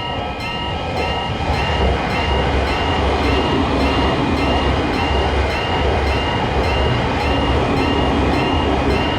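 Japanese level-crossing warning bell ringing its steady "kan-kan", about three rings every two seconds, while a train passes with a rumble of wheels on the rails that swells about a second in.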